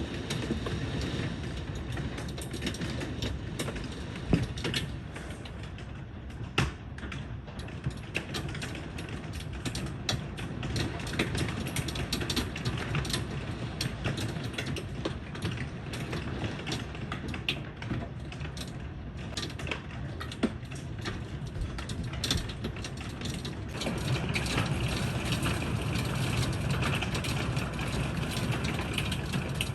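Hailstones and rain pelting hard surfaces: a dense, irregular patter of sharp ticks over a steady hiss, with a few louder knocks. The downpour gets heavier about three quarters of the way through.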